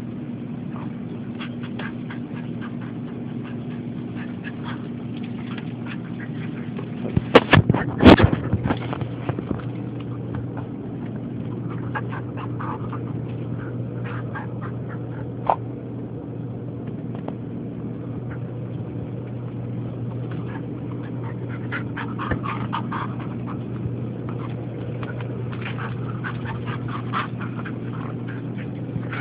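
Two Jack Russell Terriers play-fighting, growling and making short throaty calls, with a burst of loud sharp sounds about seven seconds in. A steady low hum runs underneath.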